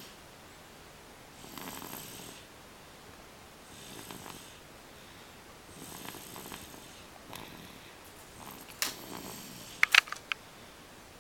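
A nine-month-old baby snoring, one soft snore roughly every two seconds. Near the end come a few sharp clicks, the loudest sounds here.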